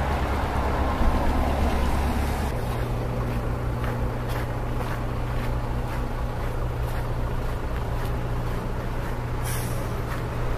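A steady low engine hum; its pitch shifts abruptly a couple of seconds in.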